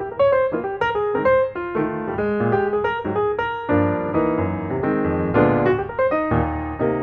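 Background piano music: a steady run of quick melodic notes over chords.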